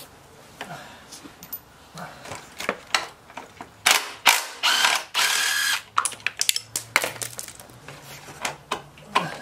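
Hand socket ratchet clicking as a shock-absorber mounting bolt on a scooter is worked loose, with scattered metal tool clicks. The loudest run of rapid ratcheting comes a little past the middle.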